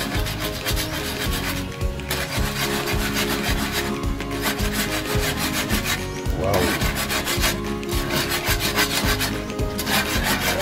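Wire balloon whisk scraping round a metal wok as it beats peanut butter into a thick sauce. The strokes come fast and even, about four a second, with a few brief pauses.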